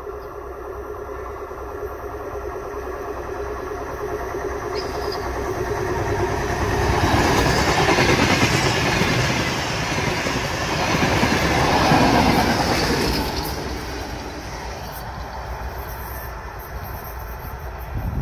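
Two coupled DR1AM diesel multiple units approaching with a steady engine drone. They grow loud as they pass close by, with wheel and rail clatter, loudest twice in the middle, then fade away.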